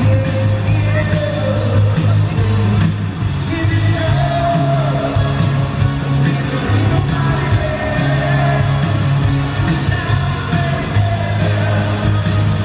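Live rock band playing loud, with electric guitar, keyboards and drums under sung vocals, and heavy bass notes underneath throughout.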